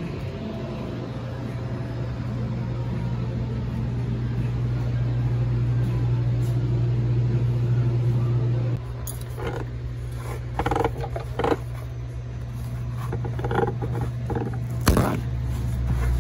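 A steady low hum throughout, with a series of short knocks and clatters in the second half as things are handled close to the microphone.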